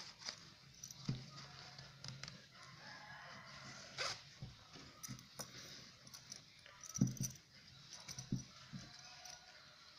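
Rustling and bumping of knotted-cord bags and wallets being handled close to the microphone, with a few short knocks, the loudest about seven seconds in.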